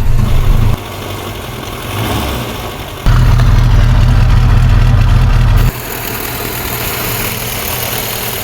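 Moskvich 412's four-cylinder petrol engine running, a steady low engine note. It switches abruptly between louder and quieter stretches and is loudest for a couple of seconds in the middle.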